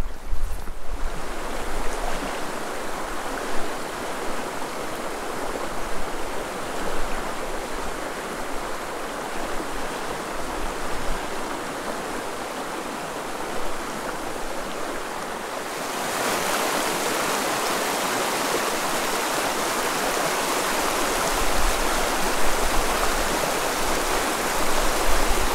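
Shallow mountain creek running over a gravel and cobble riffle, a steady rush of water that grows louder about two-thirds of the way through.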